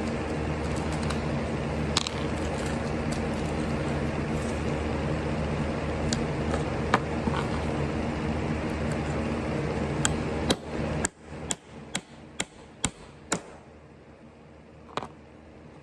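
A steady motor hum with several low pitches, cutting off about eleven seconds in, with sharp clicks and taps through it. After the hum stops, a quick run of six or seven clicks, then one more near the end.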